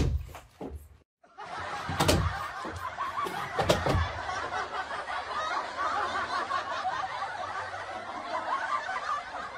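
Several people laughing together in one continuous, dense stretch that starts after a brief break about a second in, with a few thumps in the first seconds.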